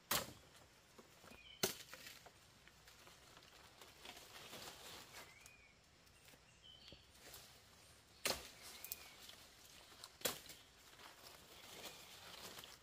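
Scattered sharp knocks, four of them loud: one at the start, one a second and a half in, and two more a few seconds apart near the end. Lighter taps and faint short chirps come in between.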